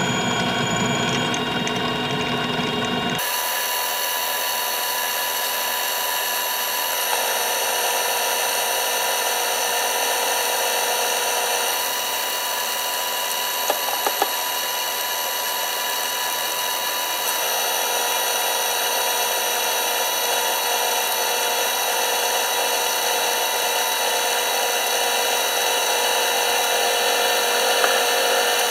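Metal lathe running, feeding a twist drill from the tailstock into spinning aluminium stock: a steady machine whine made of several fixed tones. About three seconds in, a lower hum gives way abruptly to a higher, brighter whine. A few light clicks come near the middle.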